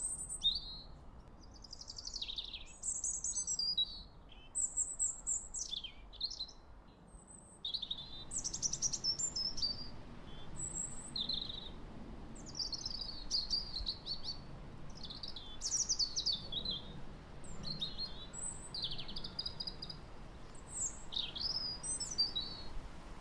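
Birdsong: a bird whistling and chirping in short rising and falling phrases over a steady wind, which grows louder about eight seconds in.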